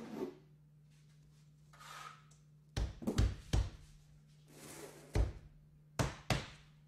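Dull knocks and thunks from a KERDI-BOARD foam-board column being pressed and tapped into place against the wall by hand, about six in all, mostly in close pairs, with brushing sounds of hands sliding on the board between them.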